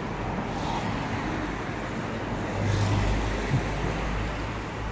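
Street traffic noise, with a motor vehicle passing close about two and a half seconds in; its low engine rumble is the loudest part.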